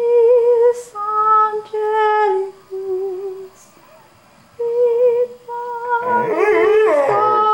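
A woman sings a slow church melody without words, in held notes with a slight vibrato and short breaks between phrases. About six seconds in, a dog's wavering howl starts to join in over her singing.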